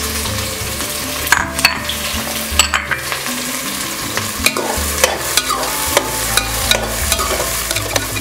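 Chopped red onions sizzling in hot oil and ghee in an aluminium pressure cooker. From about a second in, a slotted metal spoon stirring them scrapes and clicks against the pot.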